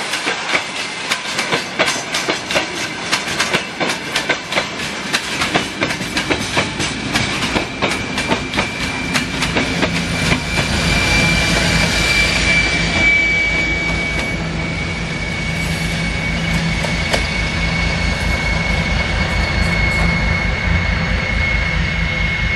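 Freight wagons rolling past behind a TEM2 shunting diesel locomotive, their wheels clicking quickly over the rail joints. About ten seconds in the locomotive itself passes: its diesel engine runs with a low, even pulsing beat, joined by a steady high-pitched whine that carries on as it moves away.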